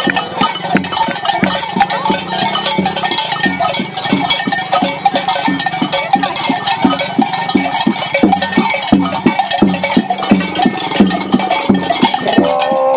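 Many metal cowbells clanking and jangling in an uneven rhythm, shaken by the steps of walking masked Careta carnival figures, who wear bells tied at the waist.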